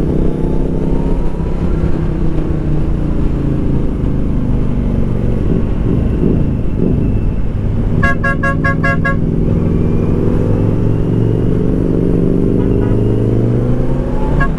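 Kawasaki Z900's inline-four engine running under the rider, its pitch sinking as the bike slows and rising again as it speeds back up. About eight seconds in, a horn sounds in a quick string of about six short beeps, with another brief beep near the end.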